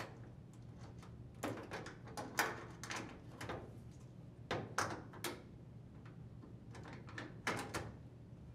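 Faint scattered clicks and knocks of a GE dryer door's metal hinges bumping and seating against the cabinet as they are set over loose hinge screws, about ten in all, some in quick pairs.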